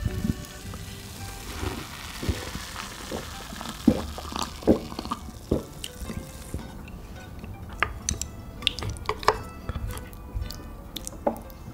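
Close-miked sounds of saucy food being handled and eaten: scattered clicks of utensils and wet, sticky smacks, with background music in the first half.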